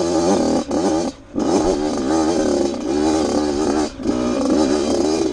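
Dirt bike engine revving, its pitch rising and falling as the rider works the throttle, with a short drop as the throttle is closed about a second in and again near the end.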